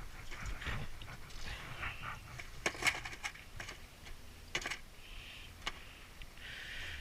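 A handful of scattered sharp clicks and taps, a few of them louder near the middle, with short patches of faint hiss between them.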